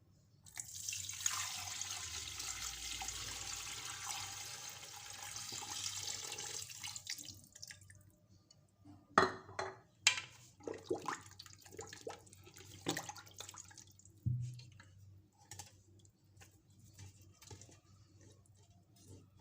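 Water poured steadily into a pressure cooker over a seasoned sheep's head, running for about seven seconds. After it come several sharp knocks and clinks of cookware being handled.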